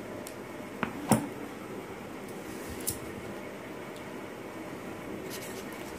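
Scissors cutting a sheet of paper, with a sharp knock about a second in and a few fainter clicks and snips later, over steady room noise.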